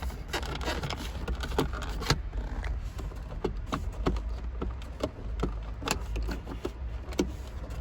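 Irregular light clicks and knocks of hands and tools working loose plastic interior trim around a car's shifter and centre console, over a steady low hum.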